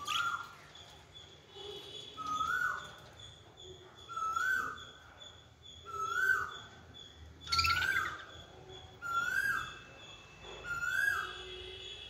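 Caged pet budgerigars calling: a loud short note that rises and then falls, repeated seven times at a steady pace of about one every one and a half to two seconds.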